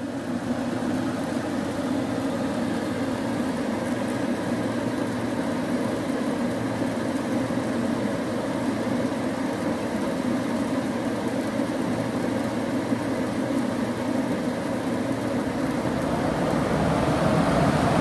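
Carrier Infinity high-efficiency gas furnace running with its four burners lit and the inducer motor going: a steady hum with a rushing noise. Near the end the sound slowly grows louder as the blower motor starts up.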